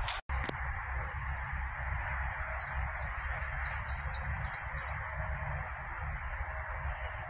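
Steady open-air background noise with a low rumble, and a few faint, high bird calls about three to five seconds in.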